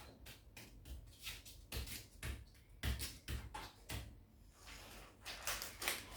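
Small hard plastic model-kit parts being handled and assembled: a quick, irregular series of clicks, taps and knocks.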